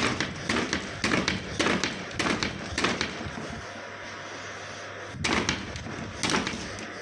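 Fiskars K40 utility knife stabbing into wooden boards: a rapid run of sharp thuds for the first three seconds or so, then two more strikes about a second apart near the end.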